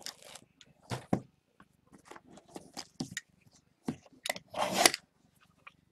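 Hands handling sealed, shrink-wrapped cardboard trading-card boxes on a table: a run of short knocks, scrapes and rustles, with a louder scraping stretch about four and a half seconds in.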